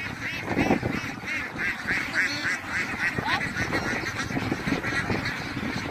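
A large flock of domestic ducks quacking, many short nasal calls overlapping in a constant chatter.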